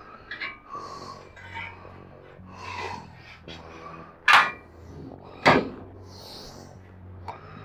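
Steel angle-iron bed rails clanking against the bunk-bed frame as they are handled and set in place: two sharp loud clanks about a second apart near the middle, with lighter clicks and scraping around them.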